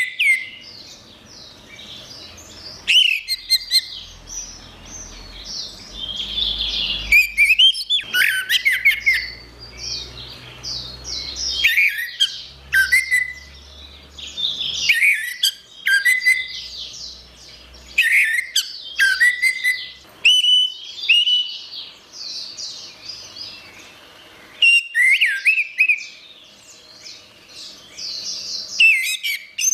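Orange-headed thrush (anis merah) singing: a string of varied phrases of quick whistled notes mixed with fast chattering, each phrase a second or two long with short pauses between.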